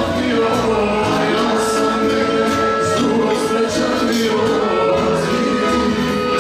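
Live band of accordion, double bass and guitar playing a lively folk tune with steady rhythm and held accordion notes, with singing over it.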